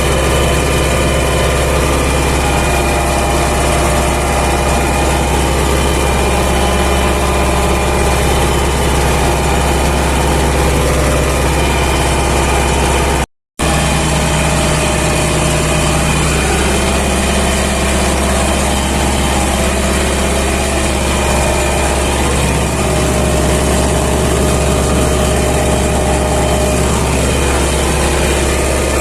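MTZ-80 tractor's four-cylinder diesel engine running steadily as the tractor works a field. The sound drops out for a moment about halfway through.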